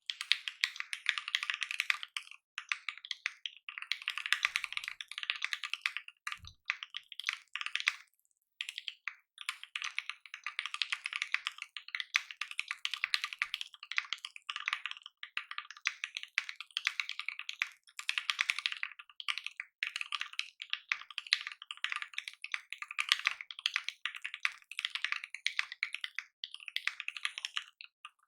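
Steady fast typing on a custom mechanical keyboard with Krytox 205g0-lubed Ink linear switches on a polycarbonate plate, making a rapid run of light clacks with a few short pauses.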